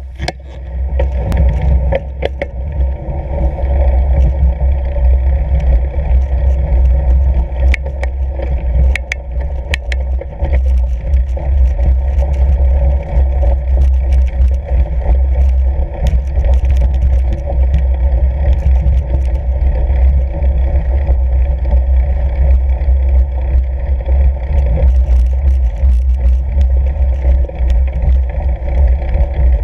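Fat bike riding over packed snow: a steady low rumble of wind on the microphone and the wide tyres rolling, with scattered sharp clicks, loudest about 2 s and 8 to 9 s in.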